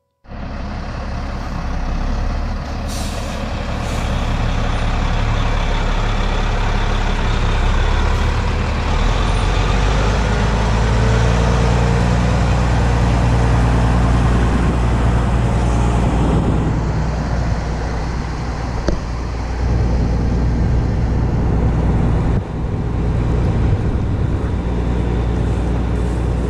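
Tractor-trailer's diesel engine running loud and steady with a deep, even drone.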